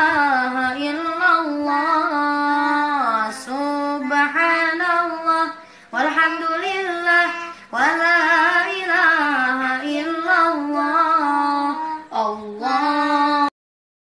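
A child reciting the Quran in a melodic, chanted style: one voice holding long, ornamented phrases that glide up and down, with short breaks for breath between them. It cuts off suddenly near the end.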